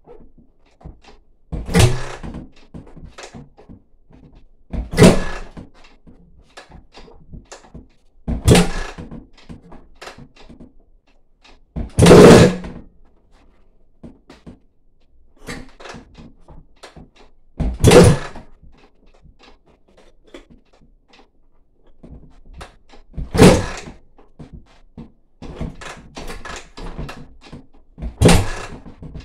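Suzuki RM-Z four-stroke single-cylinder dirt bike being kick-started seven times, a few seconds apart: each kick spins the engine over briefly and it does not catch. These are first start attempts after new valves were fitted.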